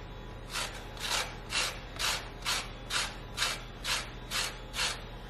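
Orange peel being zested on a stainless steel box grater: about ten rasping strokes across the metal teeth, roughly two a second, stopping near the end.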